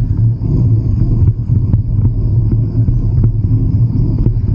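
Steady low wind rumble buffeting the microphone of a camera carried on a moving bicycle.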